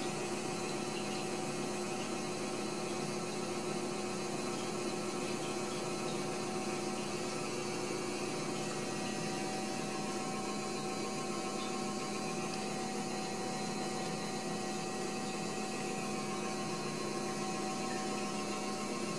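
A steady electrical hum made of a few held tones over a faint hiss.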